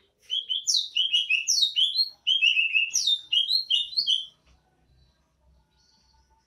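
Cucak ijo (green leafbird) singing its 'bebeci' song: two fast phrases of loud, down-slurred whistled notes with a short break between them. The song stops a little past halfway through.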